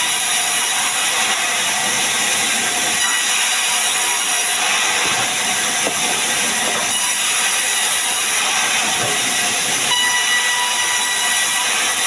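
Sawmill band saw running and ripping sengon wood into planks: a steady, high-pitched noise with faint whining tones that holds an even level throughout.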